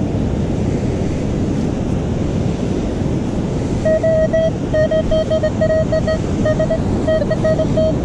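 Wind buffeting the microphone over the noise of heavy surf. From about four seconds in, a Minelab metal detector gives a run of short, steady-pitched beeps as its coil passes over the target in the freshly dug sand, a mid-tone signal that sounded like a penny.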